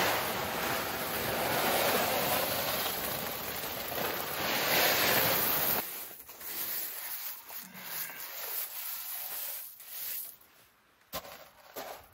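Gravel poured from a bag in a steady rushing stream that stops abruptly after about six seconds, then hands scraping and raking the gravel level. Near the end, a boot crunches onto the gravel.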